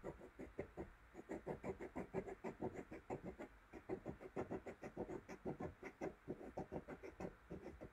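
Black pen scratching across paper in quick short strokes, several a second, drawing short straight connected lines.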